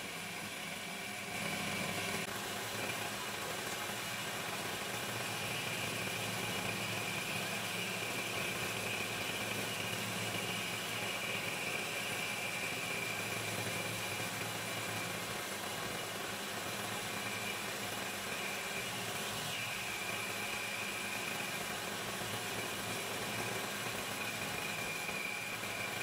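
Homemade metal lathe running as a milling machine, a cutter turning in the chuck and cutting a steel block: a steady motor hum, joined about two seconds in by a high, wavering whine.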